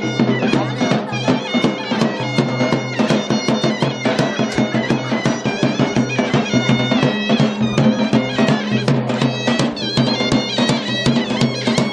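Loud folk music played live: a reedy wind instrument carries a high melody over a steady drone, with regular beats on a large double-headed drum (davul).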